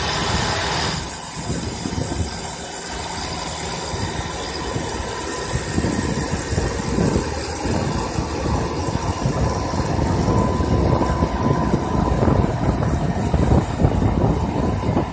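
Diesel engine of a 40 hp four-wheel-drive tractor running steadily under load while pulling a disc plough through the soil, growing louder toward the end.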